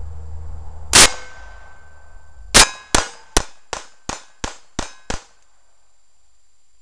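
GSG 1911 .22 LR pistol firing: a single shot about a second in, then after a short pause eight quick shots in a row, about three a second, ending about five seconds in.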